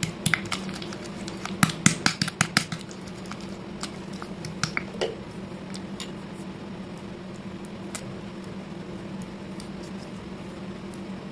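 Damp slate pencil pieces and powder crushed and pressed by hand in a bowl: a quick run of sharp crunches and clicks in the first three seconds and a few more around five seconds in, then only faint ticks from the soft paste.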